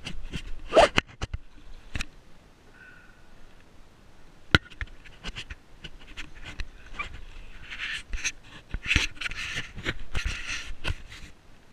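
Fingers handling and rubbing a GoPro camera's housing right at its microphone: a string of sharp clicks and knocks, with scratchy rubbing bursts near the end.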